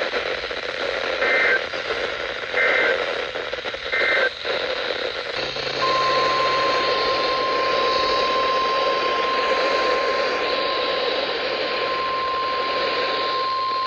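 Emergency Alert System data signal over a weather radio broadcast's hiss: three short warbling digital bursts about a second and a half apart, marking the end of the alert message. About six seconds in, a steady single-pitch NOAA Weather Radio alert tone starts and holds.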